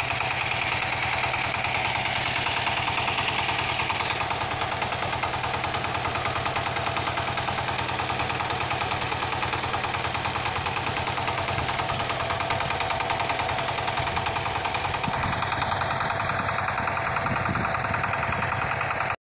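Small DC motor of a homemade toy tractor running steadily with a fast, even buzz, then cutting off suddenly at the very end.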